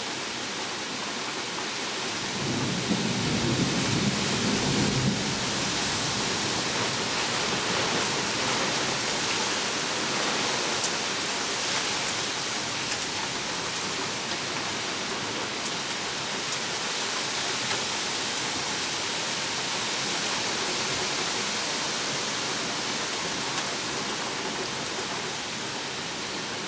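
Steady rain hissing throughout. A low rumble of thunder rolls in about two and a half seconds in and dies away about three seconds later.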